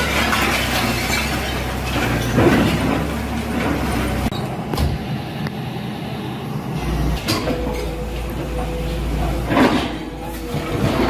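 Bulldozer engine running steadily, with a few sharp knocks and bangs of demolition.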